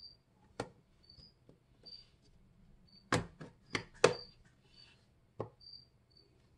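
Plastic clicks and snaps from the clear sliding door and vented plastic lid of a small tarantula sling enclosure being pushed shut and latched: single clicks, then three in quick succession about three seconds in, then one more. Behind them a cricket chirps, short high chirps about twice a second.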